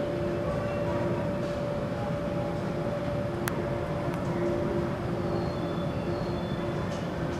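Steady hum and rumble of station ambience on a Shinkansen platform, with two steady electrical hum tones, one of them coming and going. A single sharp click comes about three and a half seconds in.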